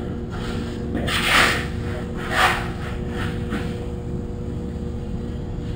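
A steady machine hum, with two short scraping noises about one and a half and two and a half seconds in, and a few fainter ones after.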